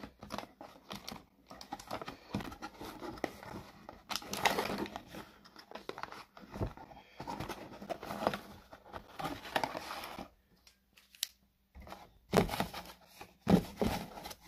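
Cardboard box and the packaging inside it rustling and crinkling as hands dig through it, in irregular spurts, with a few louder crinkles in the last couple of seconds.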